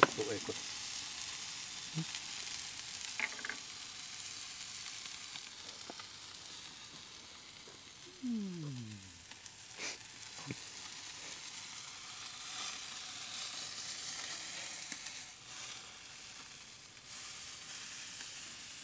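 Meat sizzling steadily on the hot griddle plate of a charcoal grill, with a few light clicks of the tongs against the plate. A short falling tone about eight seconds in.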